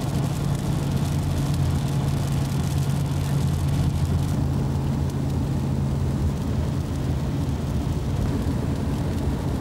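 Steady car road noise heard inside the cabin while driving on a wet highway: a constant low drone of engine and tyres with a hiss over it.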